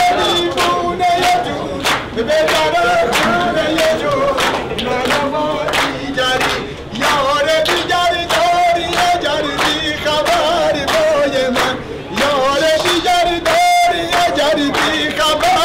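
A man singing loudly with a wavering, ornamented voice under brick vaulted arches, while a group of men claps along in a steady rhythm of about two claps a second.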